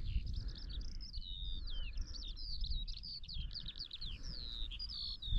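A songbird singing a fast, unbroken run of high twittering, sliding and trilled notes, with a low rush of wind on the microphone beneath it.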